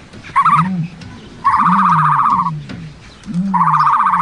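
Turkeys gobbling: a short call near the start, then two long rapid rattling gobbles, over repeated low, arching cooing calls.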